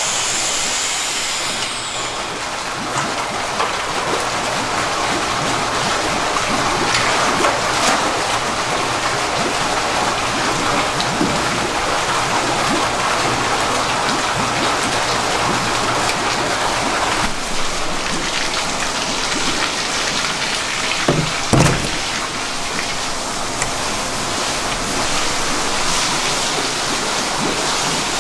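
Steady rushing and splashing of water pouring from a pipe into an eel holding tank, with eels splashing as they are netted. A couple of short thumps come about three-quarters of the way through.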